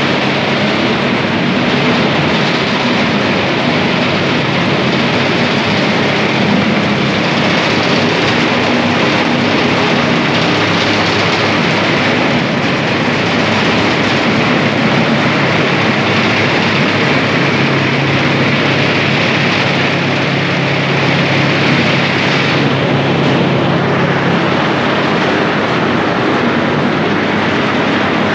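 Potato chip processing line running: conveyors and other factory machinery making a steady, loud mechanical noise with a low hum underneath.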